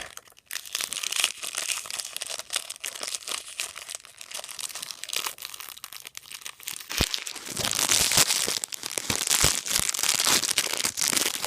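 Crinkly plastic packaging of a small toy crackling and tearing as it is handled and opened, louder in the second half.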